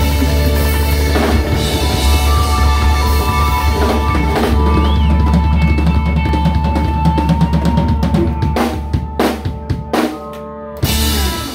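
Live jazz band of electric guitar, electric bass, keyboard and drum kit holding a final chord over drums and cymbals, closing out the tune. From about eight seconds in the drum kit plays a string of separate hits, and the held chord cuts off shortly before the end.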